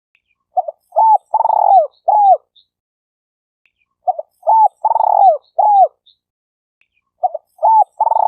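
Spotted dove cooing: three phrases about three and a half seconds apart, each a short note, a rising-and-falling coo, one long drawn note and a falling final coo.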